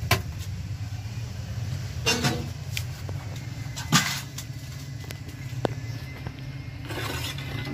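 Scattered knocks and clatters, about four sharp ones, as a snake-catching tool and flashlight bump against a brick wall and cabinet, over a steady low hum.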